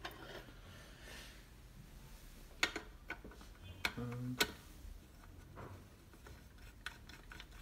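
A few light metal clicks and taps as a small brass filigree finial is fitted and screwed onto the threaded top of a brass lamp cap.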